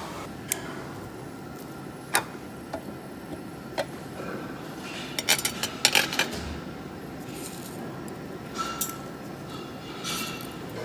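Tableware clinking and tapping: cutlery and dishes knocking against each other, a scatter of single sharp clinks with a quick flurry about five to six seconds in, over a steady low background hum.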